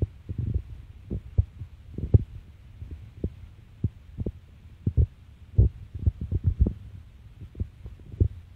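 Irregular low thumps and rumble on a handheld phone's microphone, several a second and uneven in strength, over a faint steady hiss.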